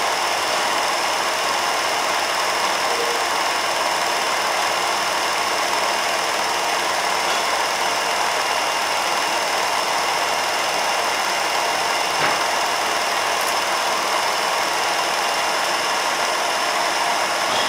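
Film projector running steadily: an even, continuous mechanical noise with a few faint steady tones.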